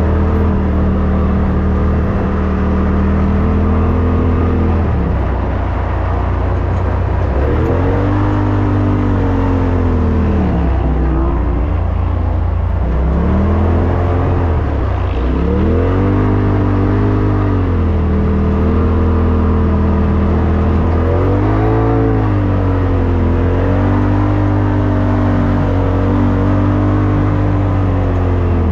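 2021 Polaris RZR Turbo S's turbocharged twin-cylinder engine driving hard over sand dunes, heard from the driver's seat. The engine speed rises and falls several times with the throttle over a steady deep drone.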